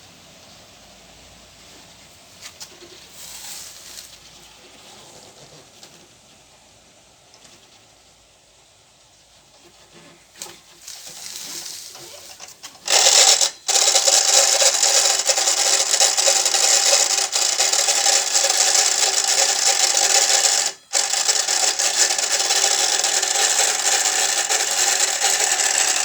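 A few faint handling sounds, then about halfway through an angle grinder starts up loudly, spinning the Yamaha T-Max 500's front wheel with the brake pads out, to bring out the front-end howl. It runs steadily, dropping out for a split second twice.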